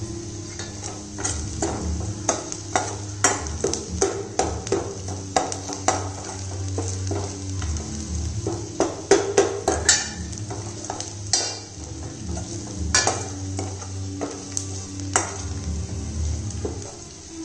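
A steel spoon stirring and scraping in a stainless steel pan, with frequent sharp clinks of metal on metal, while mustard seeds, urad dal, garlic and ginger sizzle in hot oil for a tempering.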